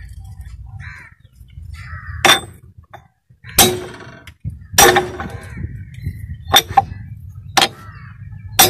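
A round steel seating block on a diesel engine's dry cylinder liner is struck from above: about seven sharp metallic knocks at uneven intervals, driving the liner down to sit flush in the engine block.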